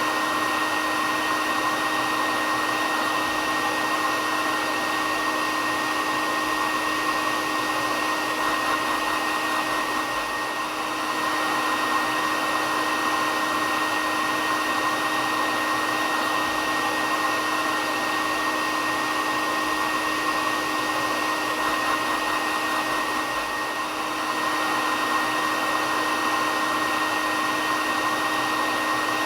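Hair dryer running steadily: an even rushing blow of air with a steady whine from the motor, dipping slightly in level twice.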